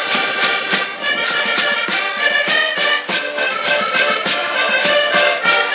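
Portuguese folk band playing a lively traditional tune on several accordions, with a cavaquinho. Bass drum and wooden scraper keep a steady beat of about two to three strikes a second.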